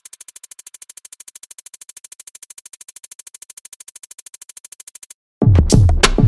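Background electronic music: a fast, even pulsing synth figure, then after a brief break about five seconds in, a much louder section with deep bass hits and drums comes in.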